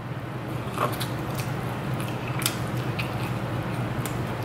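Close-miked eating: biting and chewing meat off a piece of fried chicken, with scattered short crisp clicks of chewing over a steady low hum.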